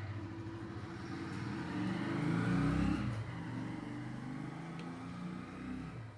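Sun Special industrial straight-stitch sewing machine with edge trimmer running. It speeds up and gets louder about two seconds in, then settles and eases off near the end.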